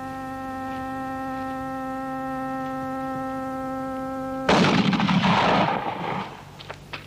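A steady held tone with overtones, cut off about four and a half seconds in by a loud rifle shot from the film soundtrack, whose noise rings on and fades over about a second and a half.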